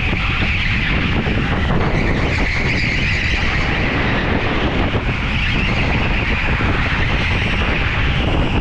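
Go-kart driving at speed around a track, heard from onboard: a steady running noise with a high hiss that swells and eases, and wind on the microphone.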